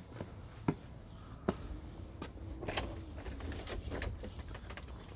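Light clicks and rattles of a window screen in its thin frame being handled, with two sharper clicks less than a second apart near the start, over a steady low rumble.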